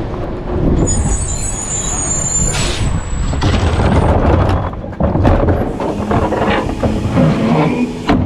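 Rear-loader garbage truck running, with a thin high brake squeal and then a short hiss of air as it comes to a stop, followed by clattering and knocks as a plastic trash cart is lifted on the cart tipper over the hopper.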